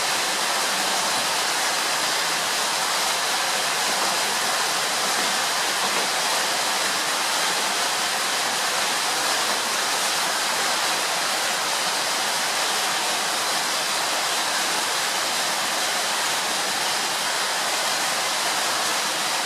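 Steady, even hiss with no distinct events in it.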